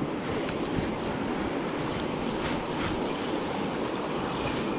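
Fast-flowing river current rushing steadily over riffles.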